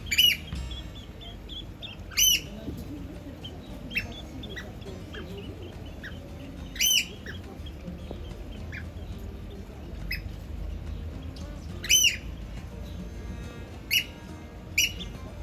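Birds calling: about half a dozen loud, harsh, squawking calls at irregular intervals, with fainter chirps in between.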